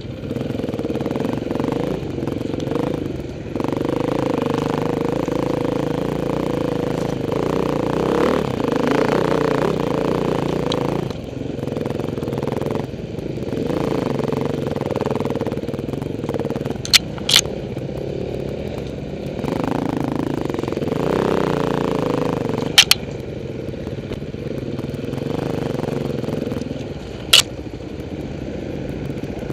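Several off-road dirt-bike engines running at low speed, their revs swelling and falling unevenly as the bikes pick their way up a forest trail. A few sharp clacks stand out in the second half.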